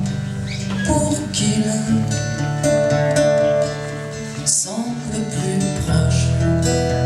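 A man singing live to a strummed acoustic guitar: steady chord strokes under a few held, sliding vocal notes, without clear words.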